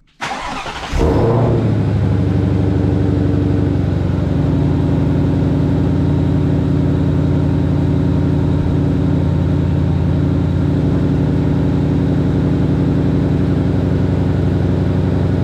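Ford Mustang Shelby GT500's supercharged V8 starting up with its new JLT cold air intake: a brief crank, the engine catches about a second in, then runs at a steady idle.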